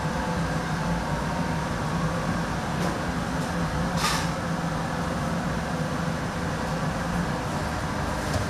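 Steady mechanical roar and hum of a commercial kitchen's burners and ventilation, with one short sharp clatter about four seconds in.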